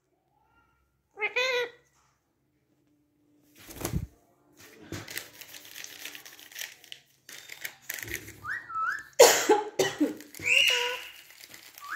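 Indian ringneck parakeets calling: a short pitched chirp about a second in, then rising whistles and curved calls in the second half. A sharp knock near four seconds, rustling, and a very loud sharp burst just after nine seconds come from the birds moving about on the lap.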